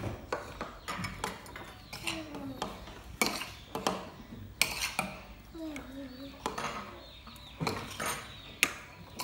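Metal spoon clinking and scraping against ceramic bowls as fried rice is scooped, in sharp irregular clinks.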